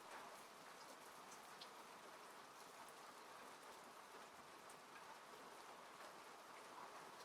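Faint, steady rain falling on a car, heard from inside it, with scattered light drop ticks.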